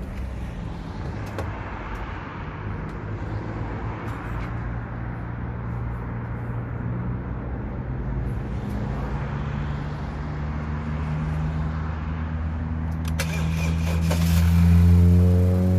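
Car engine idling steadily, its pitch rising gradually in the second half and climbing more steeply near the end, with a few clicks about thirteen seconds in.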